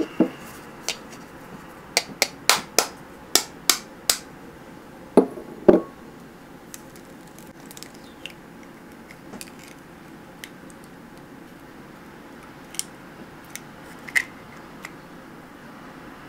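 Egg being cracked and separated over glass bowls: a run of sharp clicks and taps, then two louder knocks a little after five seconds as the egg is cracked, followed by a few faint shell clicks while the shell is pulled apart.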